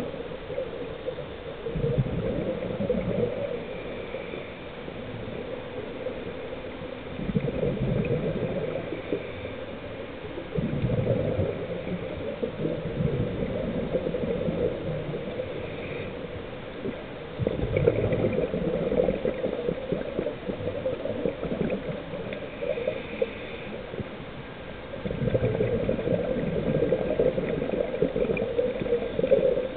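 Scuba diver's exhaled bubbles from the regulator, bubbling and gurgling in about five surges a few seconds apart, heard underwater against a steady hiss.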